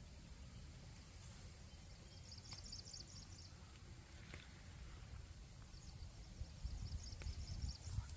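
Forest ambience: several bursts of rapid, high-pitched chirping, each about a second long, over a low rumble.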